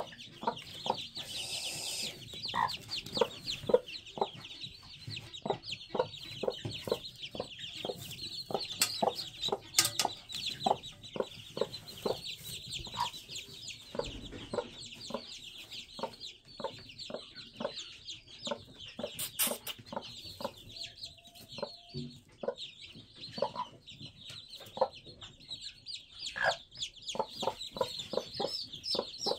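A mother hen clucking in short, low clucks over her chicks, which peep steadily and rapidly in high chirps throughout.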